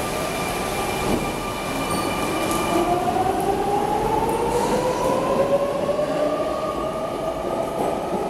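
Sydney Trains Millennium M-set electric train pulling away from the platform, its traction motors whining in two tones that rise steadily in pitch as it picks up speed, over the steady noise of its wheels on the rails.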